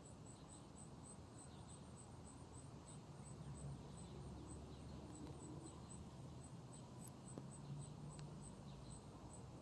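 Faint outdoor ambience: a steady high-pitched chirp repeating about three times a second over a low, distant rumble.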